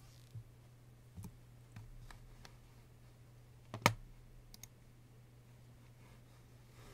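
A few faint clicks of a computer keyboard and mouse, with one much louder click about four seconds in, over a low steady hum.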